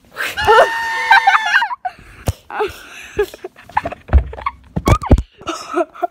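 A loud, high-pitched scream lasting about a second and a half, followed by short scattered vocal sounds and a couple of heavy thuds around the middle.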